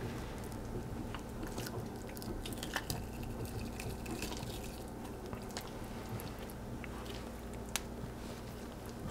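Skin being pulled off a burbot with needle-nose pliers, tearing away from the flesh in a run of small wet crackles and clicks, with one sharper click near the end. A steady low hum runs underneath.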